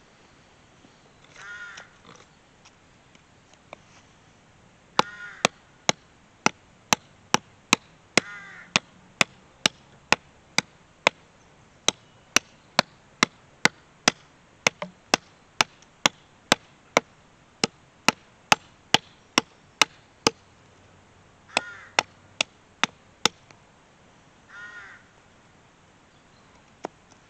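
Hatchet chopping a thin branch on a wooden chopping block: a long run of sharp, regular knocks, about two a second, stopping briefly near the end before a few more. A bird gives about five short harsh calls in between.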